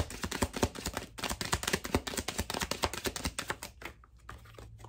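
Tarot cards being shuffled: a fast, uneven run of crisp clicks that stops a little under four seconds in.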